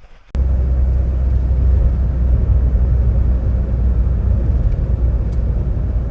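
Loud, steady rumble of a vehicle in motion, heavy in the low end, starting abruptly just after the start.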